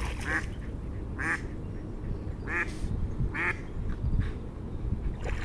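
Ducks quacking, several separate calls spaced about a second apart, over a steady low rush of running water.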